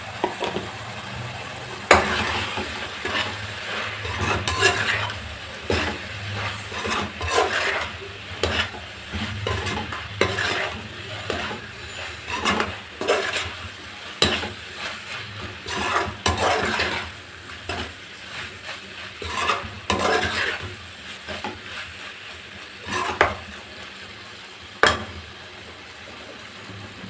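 A perforated metal spoon stirring and scraping pieces of mutton intestine around a metal kadai while the spice powder fries and sizzles in the oil, with a few sharp knocks of the spoon against the pan.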